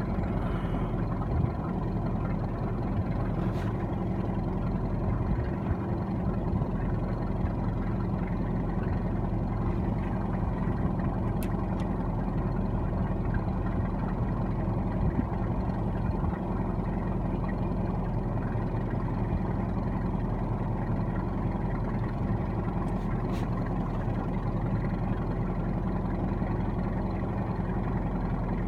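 Motorboat engine running at a steady, even speed, a constant hum that doesn't change.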